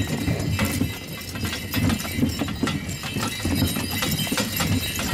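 Horse-drawn sleigh travelling over snow: the hoofbeats of a pair of horses over a steady, uneven rumble with scattered clicks.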